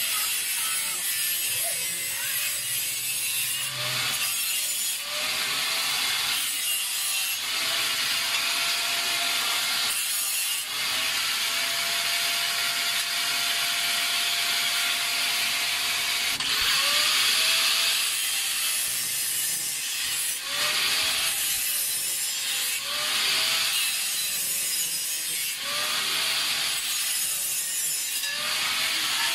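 Wood being sawn in a long run of repeated strokes.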